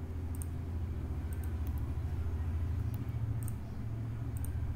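Computer mouse clicking several times, short light clicks, some in quick pairs, over a steady low hum.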